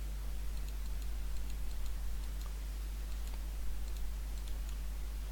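Steady low electrical hum, with faint, irregularly spaced clicks of a computer mouse over it.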